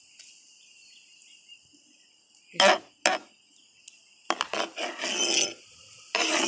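Metal kitchen knife knocking and scraping against a plastic cutting board: two sharp knocks a little after two and a half seconds, a run of scrapes from about four seconds, and a louder scrape near the end. Insects keep up a steady high-pitched chirring throughout.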